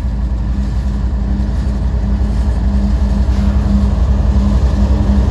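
Union Pacific diesel locomotive drawing near and passing close by: a steady engine drone with a deep hum, slowly growing louder as it arrives.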